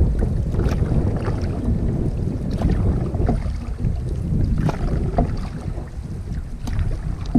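Wind buffeting the microphone in a headwind, over choppy lake water lapping against a canoe's bow. Sharper splashes come about every two seconds.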